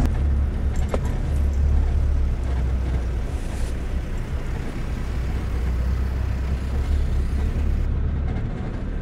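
Four-wheel-drive ute's engine running with a steady low rumble as it drives slowly up a rough dirt hill track, with a single short click about a second in.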